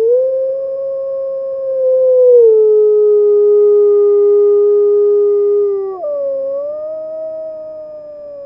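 Grey wolf howling: one long howl that steps down in pitch partway through, breaks briefly about six seconds in, then carries on a little higher and fades near the end. It is the call a wolf makes to its pack.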